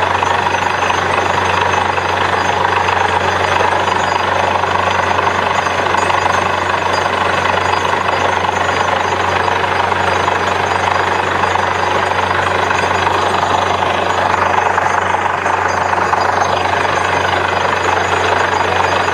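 Borewell drilling rig running steadily under load: a constant low engine drone under loud, even machine noise that does not let up.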